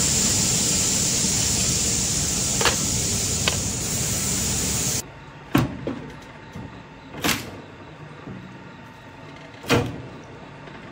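Steady loud rushing noise of a cast-iron foundry, with two faint clicks, that cuts off about halfway. Then three sharp blows, about two seconds apart, from a machine chopping logs.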